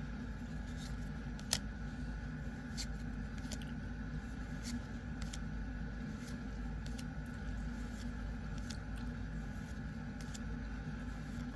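Trading cards being handled: scattered short clicks and snaps as cards are flipped and slid, the sharpest about a second and a half in, over a steady background hum.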